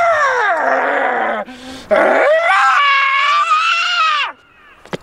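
A man's loud, drawn-out screams, two in a row. The first falls in pitch and breaks off about a second and a half in. The second rises, holds high and then cuts off near the end.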